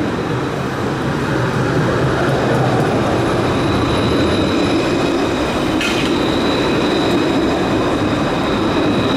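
Alstom Citadis 403 low-floor tram passing close by, its running noise swelling as it comes alongside. A steady high whine sets in about three seconds in, and there is a single sharp knock about six seconds in.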